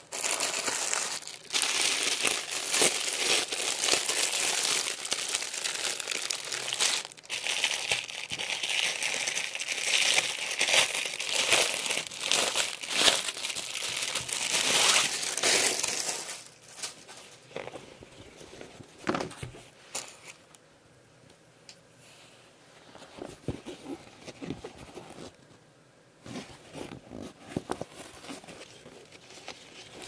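Clear plastic packaging crinkling loudly as it is opened and a folded linen tote bag is pulled out, for about the first half. After that, quieter rustling with a few light taps as the fabric bag is handled and unfolded.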